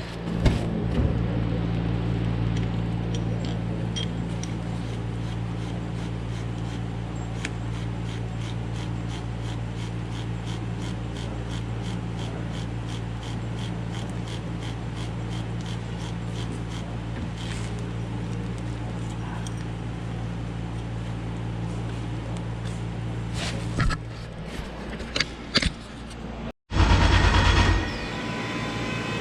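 A steady low mechanical hum with faint, evenly spaced ticks. Near the end it breaks off, and a loud burst of about a second follows.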